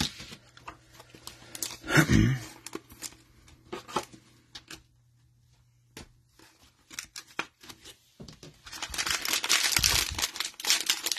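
Light plastic clicks and rustles as a trading card is handled and slipped into a plastic sleeve. From about nine seconds in, a plastic cello pack of trading cards is torn open, with dense crinkling and tearing. There is a brief louder sound about two seconds in.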